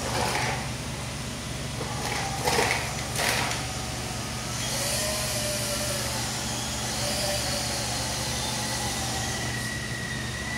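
MN99s RC scale crawler with upgraded metal parts and electronics: a few knocks as it crawls down off cardboard egg trays in the first few seconds, then the electric motor and gears whining steadily with tyres rolling as it drives away across the tile floor.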